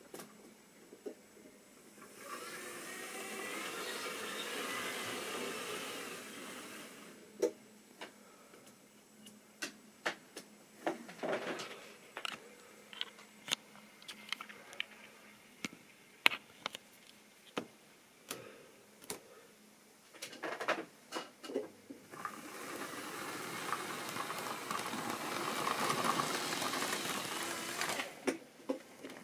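Model railway train running on sectional track: the steady whir of the locomotive's small electric motor with wheel rumble. It swells from about two seconds in and again over the last several seconds, as a model Class 47 diesel hauling wagons passes close by. In between comes a run of sharp clicks and knocks from handling.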